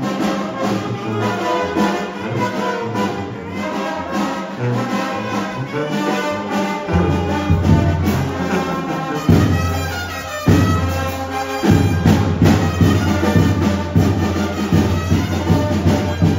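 Brass band music with trumpets and trombones playing a melody; a heavy low bass line comes in about seven seconds in.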